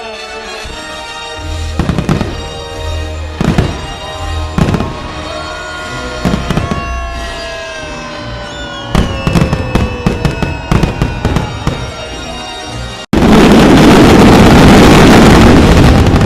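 Fireworks going off over loud orchestral music: separate shell bursts begin about two seconds in, and a cluster of crackling bursts follows around the middle. About thirteen seconds in, the sound drops out for an instant, and then a dense barrage overloads the recording into a continuous, very loud noise.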